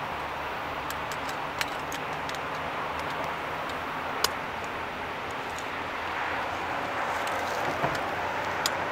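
Long freight train of open wagons rolling past at a distance, a steady noise of wheels on rail, with a few sharp clicks, the loudest about four seconds in.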